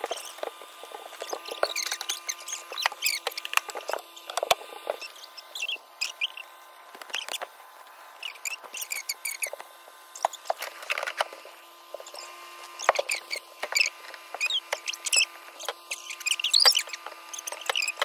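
Rummaging through camper cabinets and cushions: a busy run of clicks, knocks and scrapes from wooden cabinet doors and handled objects, with short high-pitched squeaks scattered through, over the steady hum of an electric fan.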